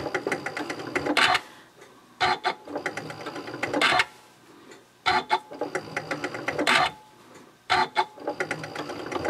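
Janome Continental M7 sewing machine top-stitching in short runs of rapid stitches, four runs of one to two seconds each. A louder clack marks each start and stop, with short pauses between runs as the fabric is pivoted around a rounded corner.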